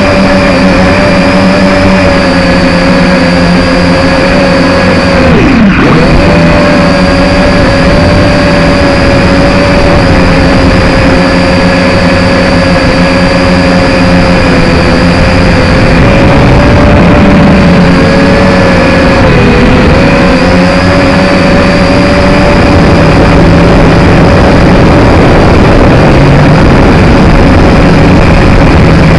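Quadcopter's electric motors and propellers running, heard loud and close from the drone's own camera: a steady high-pitched whine over a rushing hiss. About six seconds in the motors briefly slow, the pitch dropping sharply, then speed back up, with smaller wavers a little later.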